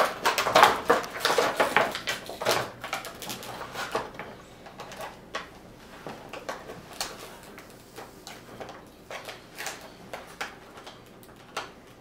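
Plastic toy packaging being handled as an action figure is worked free: a quick run of clicks, scrapes and rustles in the first few seconds, then scattered single clicks.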